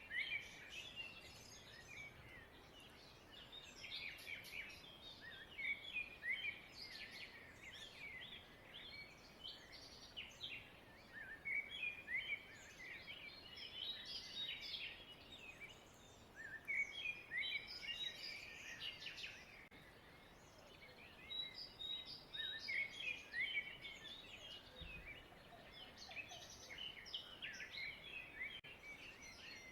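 Birds singing: faint, many short chirps and trills coming in bursts every few seconds.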